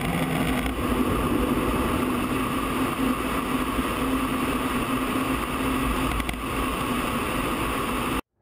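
F-16 fighter's jet engine and rushing airflow heard from inside the cockpit: a loud, steady roar with a constant hum under it, cutting off abruptly near the end.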